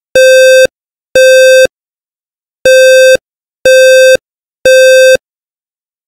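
OneLink Safe & Sound smoke and carbon monoxide alarm sounding its fire alarm in a self-test: low-pitched, buzzy half-second beeps, two, a pause of about a second, then three more. This is the temporal-three pattern that signals smoke or fire.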